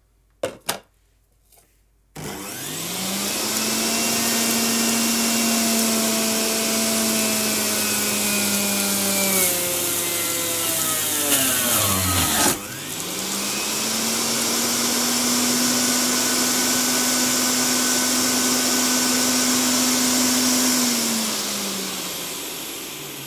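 HOUSNAT centrifugal juicer's motor and cutting disc: two clicks, then the motor starts about two seconds in and runs at high speed with a steady whine and the noise of fruit being shredded. About ten seconds in it slows almost to a stop as the pusher presses fruit in, then spins back up, and it winds down near the end.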